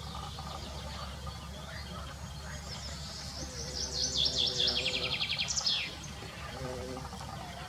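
A songbird sings over a bumblebee's faint buzzing. Its loudest phrase, about halfway in, is a fast trill of rapidly repeated high notes lasting about two seconds, with scattered chirps around it.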